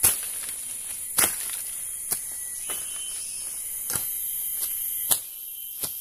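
A machete striking dry branches: about seven sharp blows at uneven intervals, the loudest right at the start and about a second in. Insects drone steadily and high-pitched behind them.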